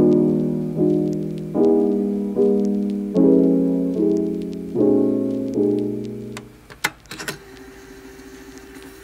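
Background piano music: soft chords, a new one struck about every 0.8 seconds, each fading away. The chords die out about six seconds in, and a few brief clicks follow.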